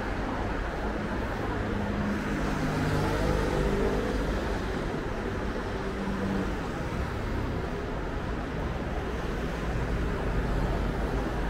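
Road traffic on a city street: a steady hum of car engines and tyres. A passing vehicle's engine note stands out for a few seconds about two seconds in.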